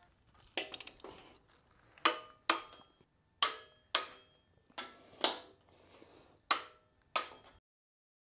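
Click-type torque wrench set to 60 ft-lb clicking over as the lift's floor anchor bolts reach torque: eight sharp metallic clicks, in pairs about half a second apart, after a few quicker light ticks near the start.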